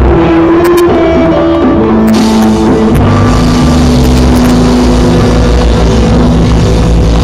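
Live rock band playing loudly: electric guitars, bass and drums. Cymbals come crashing in about two seconds in, and the drums and bass get heavier from about three seconds in.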